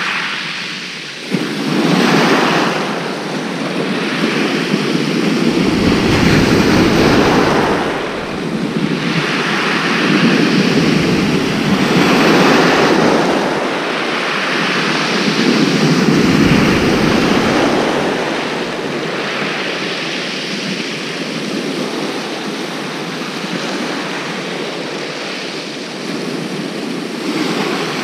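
Surf breaking and washing up a shingle beach, the noise swelling with each wave every few seconds. Wind buffets the microphone now and then, adding a low rumble.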